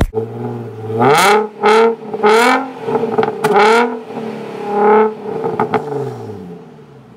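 Car engine revved in a series of sharp blips over a steady idle, then settling and fading out near the end.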